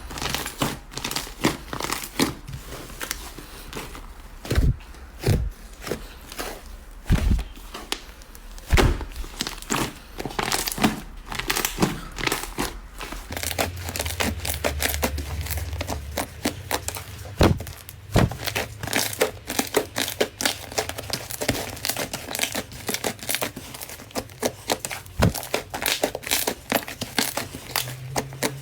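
Slime being squeezed and kneaded by hand, with dense, irregular crackling and popping clicks.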